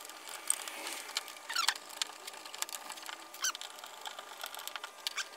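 Insulated electrical wires squeaking and rubbing as they are pulled by hand through a plastic conduit elbow on a wall box, with a few short squeaks and scattered light clicks.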